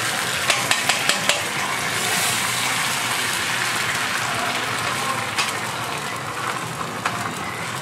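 Egg sizzling on a hot flat-top griddle, a steady frying hiss. A quick run of five sharp clicks comes about a second in, and a couple more follow later.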